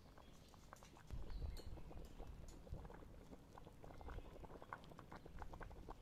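Thick yogurt-based doogh soup bubbling in a pot over a wood fire, with faint, irregular pops as bubbles break the surface. A low rumble sits underneath from about a second in.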